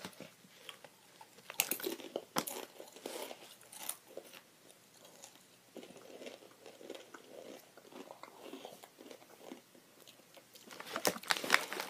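Crunching and chewing of a crisp rolled tortilla chip, a scatter of short crackly crunches. Near the end a denser run of crinkling comes in, like the foil chip bag being handled.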